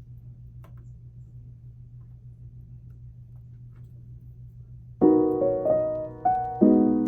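A faint, steady low hum, then about five seconds in, soft background piano music begins, with struck chords and a few single notes.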